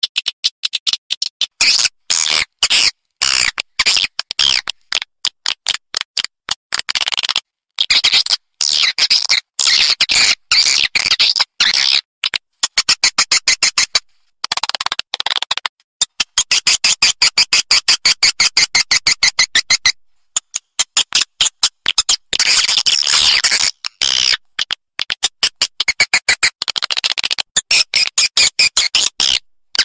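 Swiftlet calls: fast trains of clicks and high twittering chirps in bursts of a few seconds with short gaps between them. It is a swiftlet lure recording, played to draw swiftlets into a bird house.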